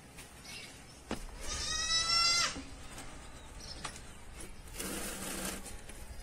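A farm animal gives one long call lasting about a second, and there is a short rustle of handling near the end.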